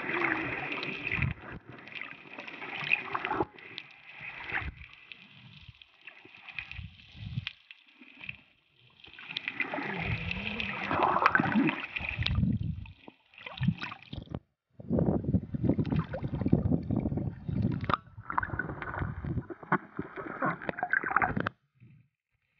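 Water sloshing and gurgling against a waterproof camera held underwater while snorkeling. It comes in irregular surges with short gaps and a few clicks, and cuts off suddenly near the end.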